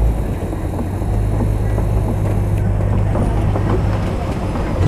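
Open-air safari ride truck driving over a bumpy track: a steady low engine drone with many small rattles and knocks from the jolting vehicle.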